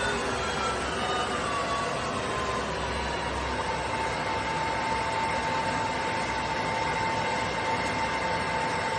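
Huvema HU 360×1000 metal lathe running, a whine over a steady mechanical noise. The whine slides down in pitch over the first three seconds or so, then holds steady.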